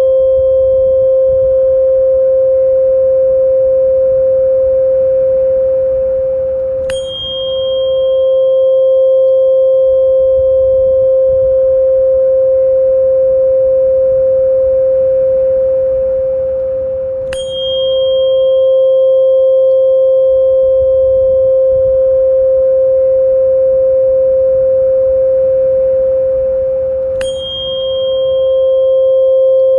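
Steady pure tone a little above 500 Hz from a frequency-therapy track, with a fainter higher overtone. Three times, about ten seconds apart, a brief click with a short high ring cuts in as the tone dips for a moment.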